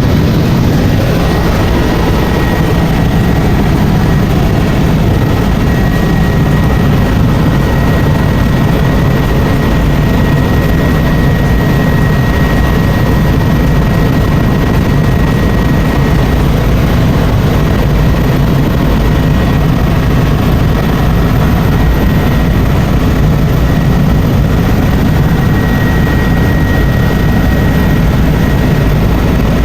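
Helicopter in flight: steady, loud rotor and engine noise heavy in the low end, with a thin high whine held throughout.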